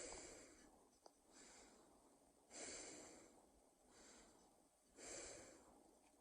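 Faint, slow breathing close to the microphone, made on purpose as a sleep-aid sound: three louder breaths about two and a half seconds apart, with softer breaths between them.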